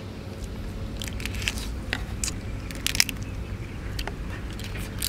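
A man biting and chewing cooked crab, the shell cracking in irregular crisp crunches, the sharpest about three seconds in, over a low steady rumble.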